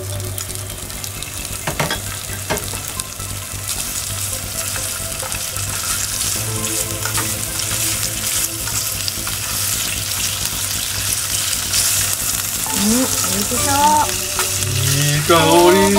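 Sliced chashu sizzling in sesame oil in a small square non-stick frying pan, stirred with chopsticks, with a couple of sharp clicks about two seconds in. The sizzle grows louder as it goes, and a person's voice comes in briefly near the end.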